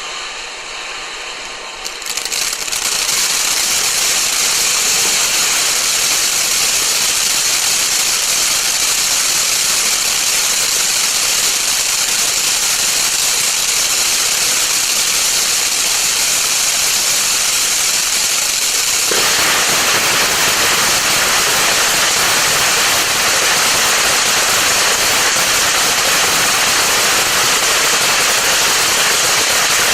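Firework fountain spraying sparks: a steady, dense hiss and crackle that gets louder about two seconds in and turns fuller and heavier about nineteen seconds in.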